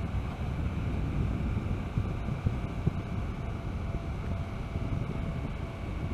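Wind buffeting the helmet-camera microphone of a Hyosung GT650R ridden at speed, with the bike's V-twin engine running steadily underneath.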